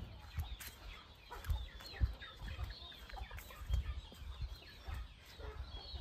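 Chickens clucking here and there, with low thuds of footsteps on dry bamboo leaf litter.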